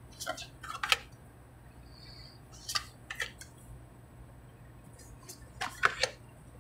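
Tarot cards being dealt and laid down on a tabletop: three short clusters of light clicks and snaps as each card is slid off the deck and placed, about a second in, around the middle, and near the end.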